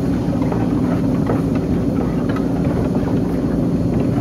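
1935 Prigent Frères wooden threshing machine running under belt drive: a steady low mechanical hum with faint irregular knocks from its moving parts.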